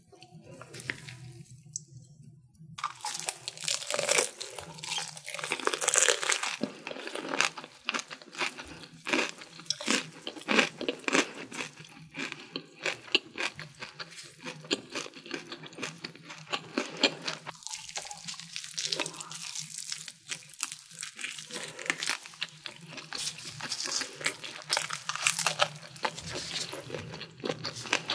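Crispy fried chicken skin crunching, with wet chewing, as a fried chicken drumstick is bitten and eaten. The dense, irregular crackle begins about three seconds in and keeps going.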